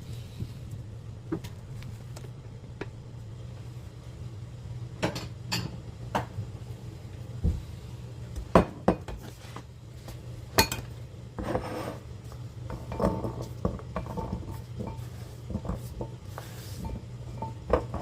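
Kitchen clatter: pots and utensils clinking and knocking now and then at irregular moments, over a steady low hum.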